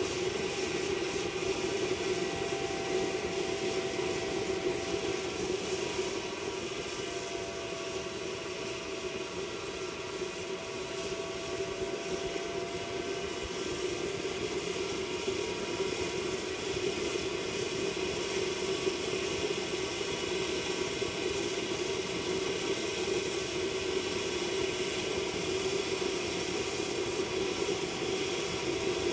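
Small waste-oil stove made from a fire extinguisher, burning steadily with a rushing burner noise under air forced in through a blower pipe, with a faint tone that wavers slowly in pitch. The flame is burning blue, the sign of complete combustion.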